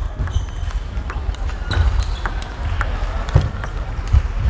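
Table tennis ball being played: sharp clicks of the ball off bats and table at uneven intervals, about two a second, over a steady low rumble of hall noise.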